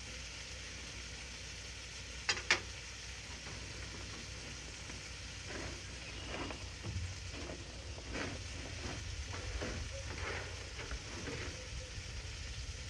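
Ribeye steaks sizzling on a Blackstone flat-top griddle, a steady frying hiss, with a couple of sharp clicks a little over two seconds in.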